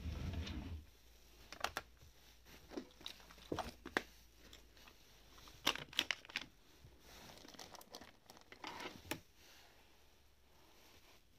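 A drawer slides open with a short rumble, then hands rummage through the things inside: plastic packets crinkling and small boxes and bottles clicking against each other.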